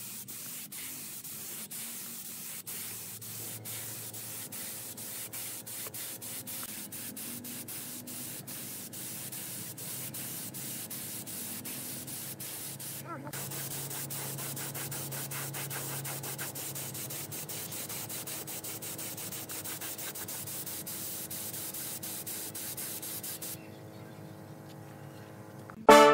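Gravity-feed air spray gun hissing steadily as it sprays finish onto a wooden vase, with a steady low hum underneath. The hiss breaks briefly about halfway through and stops a couple of seconds before the end, leaving only the hum.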